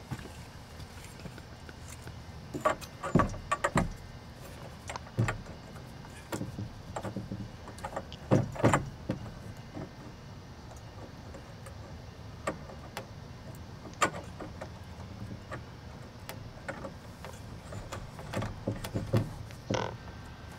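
Clicks and knocks of a chrome shower arm and escutcheon being handled and screwed into a brass drop-ear elbow, in a few short bunches with quieter gaps between.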